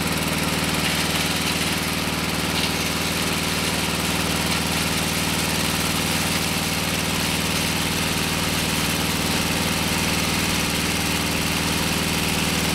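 Portable sawmill's engine running steadily as its saw blade cuts along a squared log.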